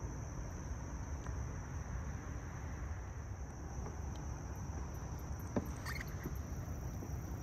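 Quiet outdoor ambience on a still lake: a low steady rumble under a thin, high, steady insect drone, with a few small clicks and a short high chirp about six seconds in.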